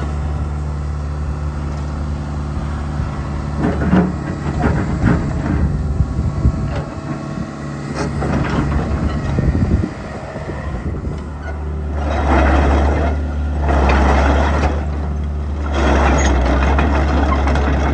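Caterpillar 312CL excavator's diesel engine running steadily, with irregular metallic clanks and knocks in the middle. Three longer, louder hissing surges follow near the end as the machine works.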